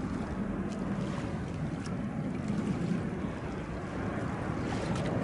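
Steady low rumble and rushing noise of a Boeing 787 Dreamliner's jet engines on final approach, mixed with wind on the microphone.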